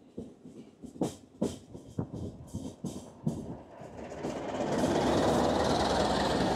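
Train wheels clicking over rail joints, heard through an open carriage window. From about four seconds in, a loud rush and rumble builds as the train runs close alongside a Class 1400 diesel locomotive on the next track, fading right at the end.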